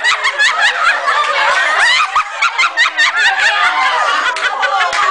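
A group of people laughing loudly together, many voices overlapping, with scattered hand claps in the second half.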